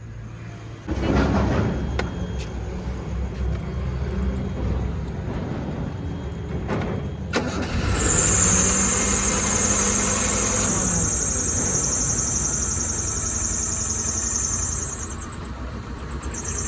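Car engine starting, catching abruptly about a second in and then running. About eight seconds in it is revved, with a high-pitched whine that holds for several seconds.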